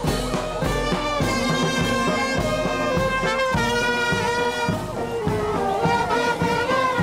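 A marching band playing: brass horns holding a melody over steady drumbeats.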